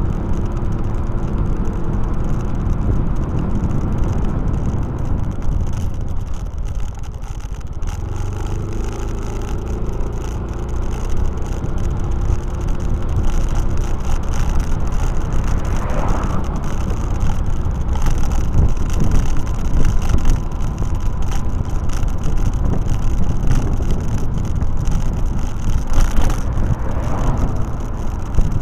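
A motor vehicle's engine running on the move, with road and wind noise heavy on the camera's microphone. About seven seconds in, the engine note dips and then comes back at a different pitch.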